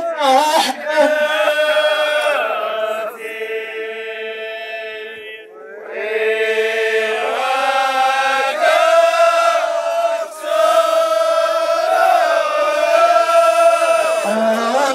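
Voices chanting a slow, drawn-out melody in Amazigh tandamt style, with long held notes and a brief break about five and a half seconds in.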